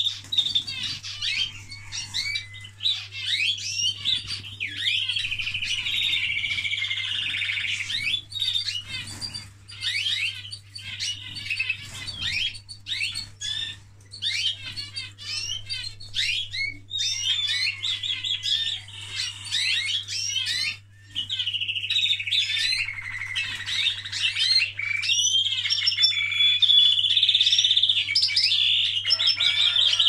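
Caged canary-hybrid finches singing a continuous run of fast twittering phrases and long rolled trills, with a brief pause about two-thirds of the way through.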